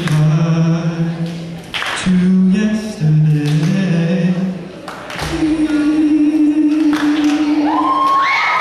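Young male singer singing solo into a microphone, holding long low notes and then one long higher note. A high rising cry comes in near the end.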